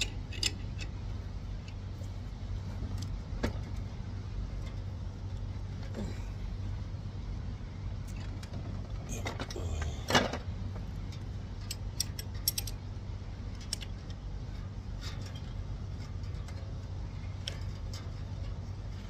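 Wrench clinking and clicking on the forcing screw of a bearing puller that is torqued down on a seized part, over a steady low hum. About ten seconds in comes a louder metallic clank with a brief ring.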